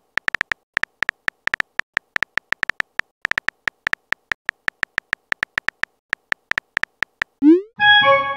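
Phone keyboard typing sounds: rapid, irregular short tapping blips, one per key, as a chat message is typed. Near the end, a quick rising swoop as the message is sent, then a brief chime of several tones.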